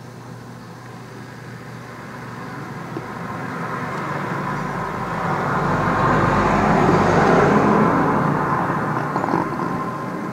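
A vehicle going past, its noise growing steadily louder to a peak about seven seconds in with a deep rumble, then fading.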